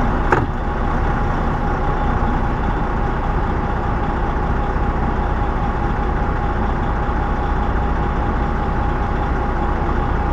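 Semi truck's diesel engine running steadily, heard from inside the cab, with a brief click about a third of a second in.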